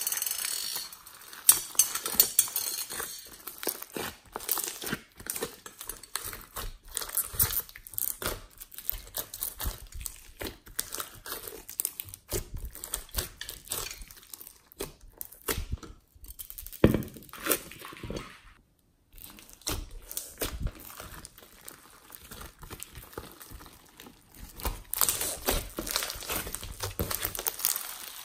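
Hands squishing, squeezing and stretching glossy slime mixed with foam beads and glitter, making a run of irregular sticky clicks, pops and crackles.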